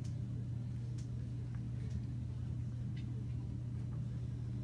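Steady low hum, with a few faint ticks scattered through it.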